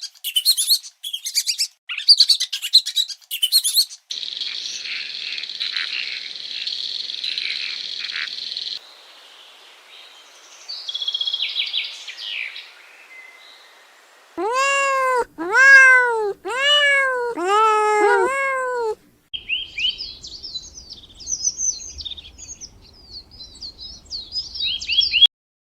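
A run of separate animal calls. First high bird chirping, then a dense, even chorus of high chirps lasting about five seconds. Around the middle come five rising-and-falling calls a little under a second each, and near the end more quick high twittering.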